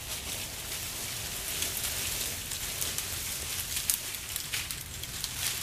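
Dry brush and fallen leaves rustling and crackling as a person pushes into a thicket and handles the branches, with scattered twig snaps and a steady low rumble underneath.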